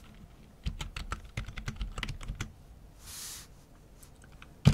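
Typing on a computer keyboard: a quick run of keystrokes for about two seconds, a short soft hiss about three seconds in, then one louder key strike near the end.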